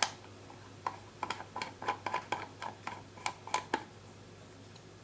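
Light, irregular metal clicks and ticks, about a dozen over three seconds, as a Kayfun Lite rebuildable atomizer is screwed by hand onto an ohm meter's threaded connector to read its coil's resistance.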